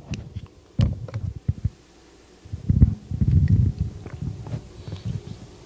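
A person drinking water close to a microphone: a few sharp clicks and knocks, then a run of low gulps about two and a half seconds in.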